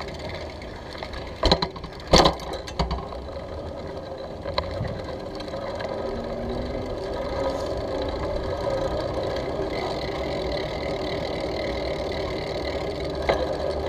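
Bicycle riding heard from a handlebar-mounted camera: steady tyre rumble and rattle of the bike and mount, with a cluster of sharp knocks about two seconds in as the bike jolts over a bump, and the rumble growing a little louder from about six seconds in.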